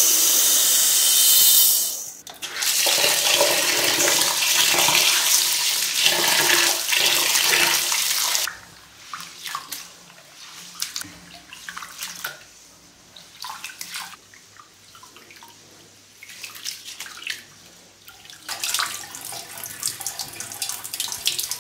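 Pearl millet grains poured into a stainless steel bowl with a loud hiss, then a steady rush of water running in for several seconds. After that, quieter irregular swishing and splashing as a hand rubs the grain in the water to wash out sand and dust, with water being poured off again near the end.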